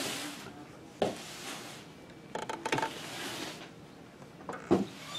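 A cardboard box pushed across carpet with a brief scrape, then scattered handling noises: a sharp knock about a second in, a run of clicks and rattles, and another knock near the end.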